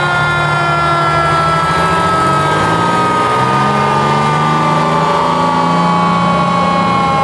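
Vintage fire truck's mechanical siren winding down, one long tone falling slowly in pitch, over the low running of the trucks' engines.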